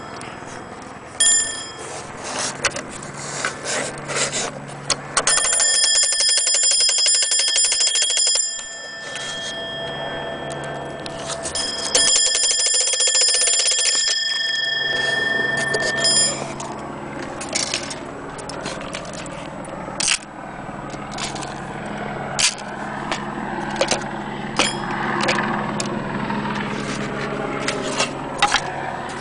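Vintage mechanical alarm clock's bell ringing: a short ring about a second in, then two bursts of about three seconds each, the second left to die away. After that, scattered clicks and knocks.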